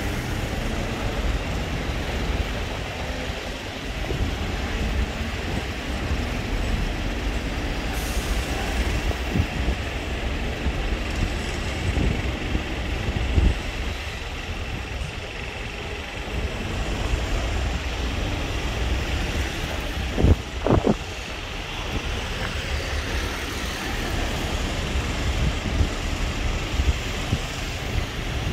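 City street traffic noise: a steady low rumble of passing vehicles, with a short pitched sound about twenty seconds in.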